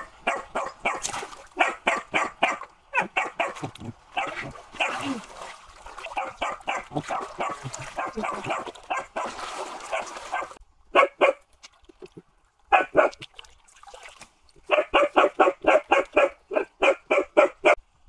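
A dog barking in fast runs of short, high yaps, about four or five a second, with a lull of a few seconds broken by two single barks, then another quick run near the end.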